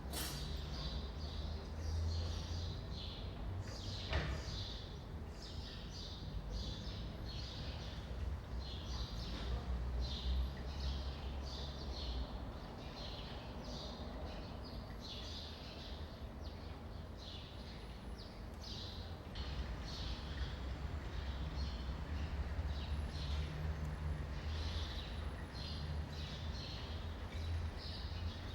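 Small birds chirping in short repeated calls over a steady low city traffic rumble that swells and fades. One sharp click about four seconds in.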